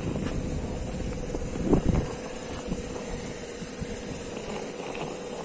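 Old air compressor running with a steady hum, pushing air down a hose into a 60-metre well to lift muddy water out. A low rumble eases off about two seconds in.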